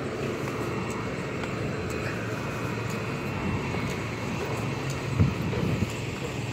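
Street traffic running past: a steady hum of vehicle engines and tyres, with a brief louder burst about five seconds in.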